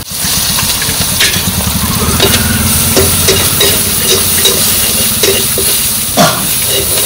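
Food sizzling in hot oil in a pan while it is stirred, with a spatula scraping the pan now and then. A steady low hum runs underneath.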